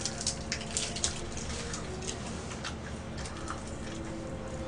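Fried chicken being pulled apart by hand and eaten, giving faint, scattered crackles and smacks over a low steady hum.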